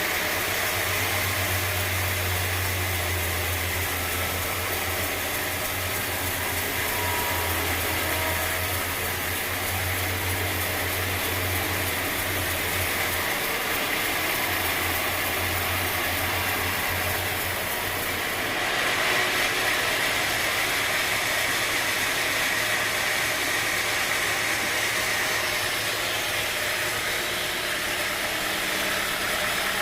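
Machinery running steadily, with a low hum that drops out about two-thirds of the way through, leaving a brighter hiss.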